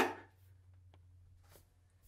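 The last of a man's called name fading out at the very start, then near silence: quiet room tone with a few faint ticks.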